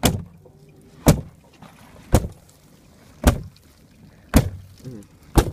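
Heavy blows striking a car's body, heard from inside the cabin: six loud thuds about a second apart, the car being beaten by a crowd surrounding it.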